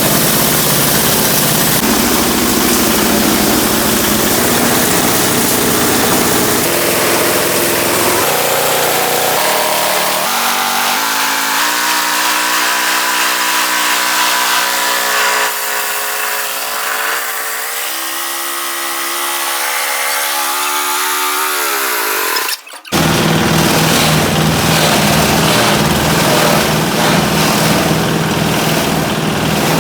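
Water-cooled diesel engine of a grass chopper and milling machine, started for the first time and running loudly. Through the middle a tone climbs steadily in pitch. About 23 seconds in the sound breaks off abruptly for a moment, then the engine runs again with a regular beat.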